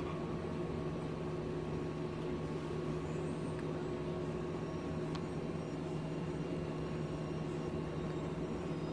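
Steady low machine hum with a faint hiss under it, unchanging throughout; one faint click about five seconds in.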